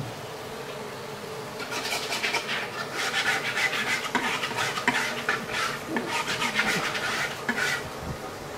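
Quick scratchy scrubbing strokes on a hard surface in a stainless-steel kitchen sink, starting about two seconds in and stopping near the end.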